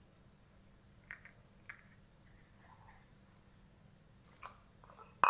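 Small plastic toy pieces being handled: a few light clicks, a rustle, and a sharper click at the end.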